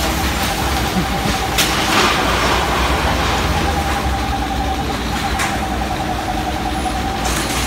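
A backhoe loader's diesel engine running steadily with a constant high whine, as its bucket crushes a stall of corrugated sheet metal, with a few sharp knocks of metal and debris giving way.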